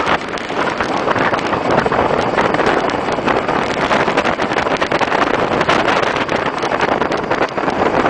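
Steady rush of wind buffeting the microphone, mixed with road noise from riding along a street.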